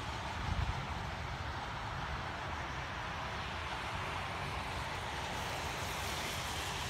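Wind buffeting the microphone in an irregular low flutter, over a steady distant rumble and hiss.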